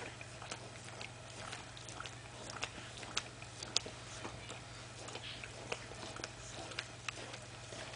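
A dog nibbling and mouthing at another dog's fur close to the microphone: a string of irregular soft clicks and smacks.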